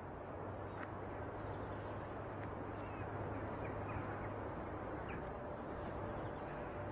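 Faint outdoor ambience: a steady low hum with a few short, faint bird calls.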